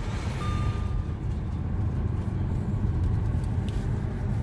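Steady low rumble of a vehicle engine running, with one steady reversing-alarm beep about half a second in.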